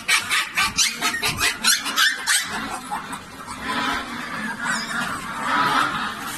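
Young puppies yelping loudly in a quick string of short, high cries that thin out after about two and a half seconds.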